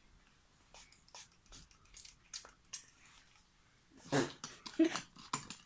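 A hand spray bottle of slime activator giving a series of short hissing spritzes, with small clicks of handling; the spritzes come thicker and louder about four seconds in.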